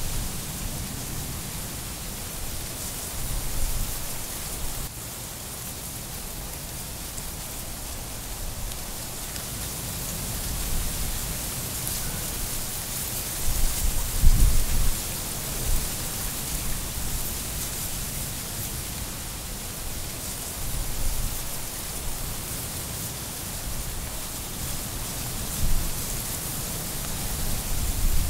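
Outdoor garden ambience: a steady high hiss, with low rumbles that come and go, the strongest about halfway through.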